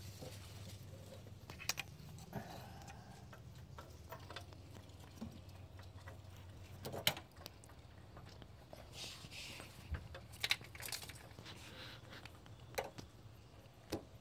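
Faint, scattered metallic clicks and taps as a new oxygen sensor is threaded into the exhaust pipe and a wrench is worked on it, the loudest click about halfway through, over a low steady hum.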